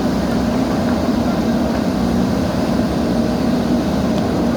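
JCB backhoe loader's diesel engine running steadily with a constant low drone.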